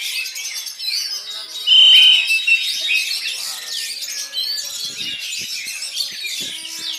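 Many songbirds singing at once, a dense mix of chirps, trills and whistles led by oriental magpie-robins (kacer). About two seconds in, one bird gives a loud, held whistle.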